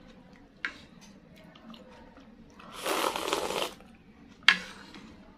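Close-miked eating of es campur, an iced fruit-and-milk dessert. A light click comes under a second in, then a loud burst of eating noise from the mouth lasts about a second, starting about three seconds in. Near the end comes a single sharp clink of the spoon against the bowl, the loudest sound.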